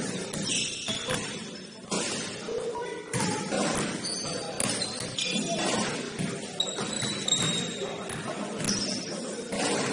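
Indoor basketball game in a gym hall: scattered ball bounces and thuds among distant voices, echoing.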